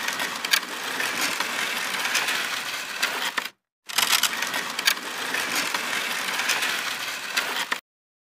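Animated outro sound effect: a gritty crunching, scraping noise studded with sharp clicks, in two stretches of just under four seconds each with a short break between them, starting and stopping abruptly.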